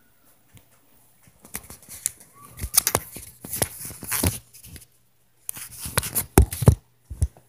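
Rapid knocks and thuds in two busy bursts, one from about one and a half to five seconds in and another around six seconds, with a couple more near the end, over a low steady hum. It is recorded as upstairs neighbors stomping overhead.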